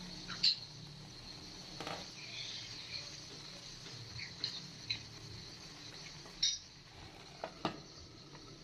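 Grated pineapple simmering in a nonstick pan, sputtering steadily as its water cooks off on the way to jam, with a few sharp clicks and knocks from the wooden spatula and the glass lid.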